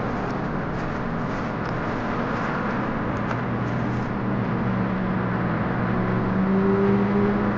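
Road traffic noise: a steady rush of passing cars, with an engine hum growing louder over the last couple of seconds.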